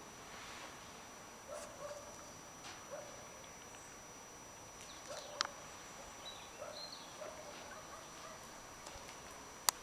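Faint outdoor ambience with scattered short soft sounds, a few brief high chirps, and two sharp clicks, one about halfway and one near the end.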